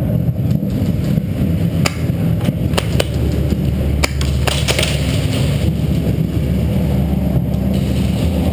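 A scatter of sharp cracks and snaps from airsoft fire, about eight of them between two and five seconds in, over a steady low rumble that is the loudest thing throughout.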